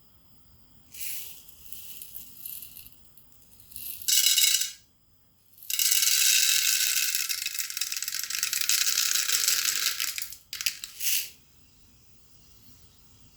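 Rattling in four bursts, the longest about four and a half seconds, with short pauses between them.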